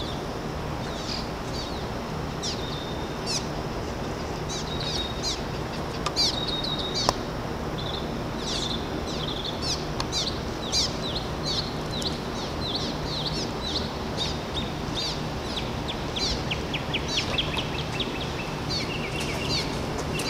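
A flock of small birds chirping, quick short calls overlapping several times a second, over a steady low background rumble.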